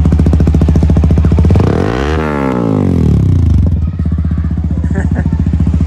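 Sport motorcycle's engine and exhaust running at idle with a rapid, even beat. Around two seconds in, a sound sweeps up in pitch and back down over about two seconds before the steady idle carries on.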